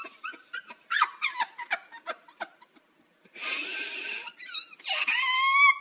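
A person crying theatrically: short sniffs and sobs, then a high wail rising near the end.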